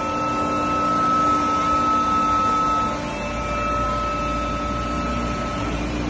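Full-automatic horizontal cardboard baler running as it compacts a bale: a steady hydraulic pump whine over a machine hum. A high tone in the whine fades out just before the end, while a low rumble grows stronger from about halfway through.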